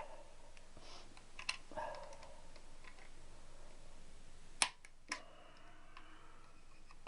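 Small sharp metallic clicks and clinks of tools and engine parts being handled during a motorcycle engine strip-down, with two louder clicks about four and a half and five seconds in, and some brief soft scraping.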